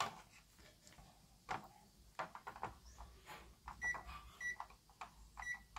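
A digital multimeter's continuity beeper gives three short, high beeps in the second half as its probes touch points on a circuit board, each beep marking a connected track between the probed points. Faint clicks and taps of the probe tips and handling come in between.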